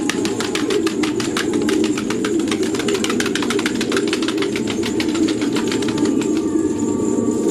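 A flock of pigeons, with quick wing flaps and claps in a long rapid run that thins out near the end, over a steady low hum.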